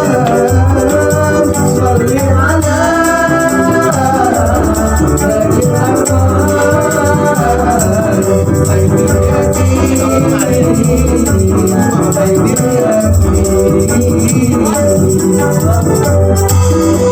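Hadrah ensemble music: frame drums beating a steady rhythm under jingling, rattle-like percussion, with a gliding melody line on top.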